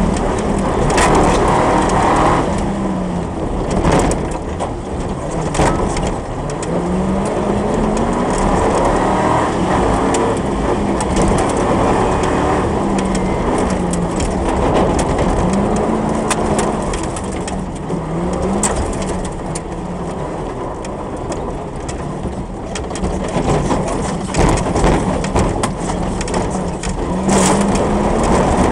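Comp safari car's engine heard from inside the cab, revving up and falling back again and again as it is driven hard over rough quarry tracks, with many sharp knocks and clatter from bumps and stones striking the body.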